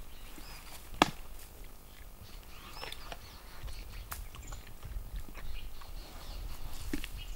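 Indian wild boar crunching the bones of a piglet carcass in her jaws: scattered cracks and chewing, with one sharp loud crack about a second in. A grey francolin (grey partridge) calls in the background around three seconds in.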